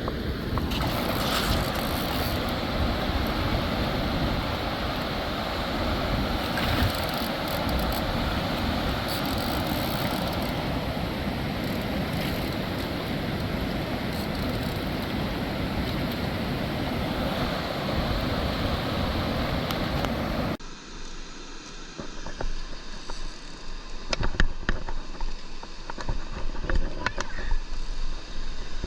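Steady rush of moving river water. About 20 seconds in it cuts off suddenly to quieter sound with scattered small clicks and knocks.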